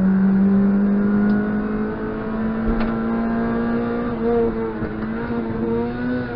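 Rally car engine heard from inside the caged cabin, pulling hard under load, its pitch rising slowly and steadily, then starting to drop near the end as the car slows for a bend. Road and tyre noise runs underneath.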